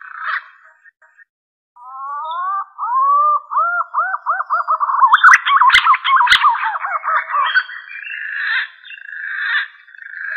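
Punai (green pigeon) song used as a hunting lure: starting about two seconds in, a run of fluting whistles in quick looping notes that rise and fall, turning into a rougher, steadier whistle near the end. Two sharp clicks sound briefly in the middle.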